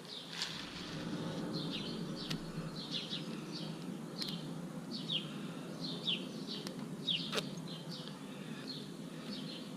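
A bird chirping repeatedly, short high calls that fall in pitch, about one or two a second, with a few sharp clicks mixed in.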